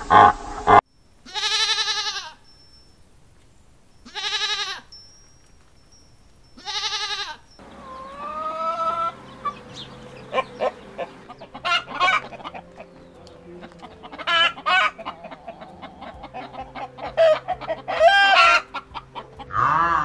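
A deer calling three times, each a drawn-out bleat of about a second, after a couple of short loud sounds at the very start. Then domestic hens clucking and cackling, busier and louder near the end.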